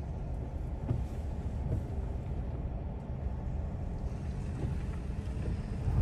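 Steady low road and engine noise heard from inside a pickup truck's cab while it is being driven.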